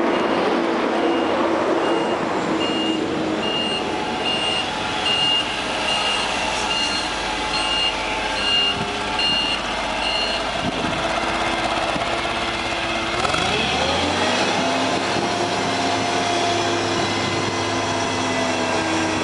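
Cat forklift's engine running while the truck reverses, its backup alarm beeping nearly twice a second. The beeping stops about ten seconds in. A few seconds later the engine pitch rises and holds while the mast is raised.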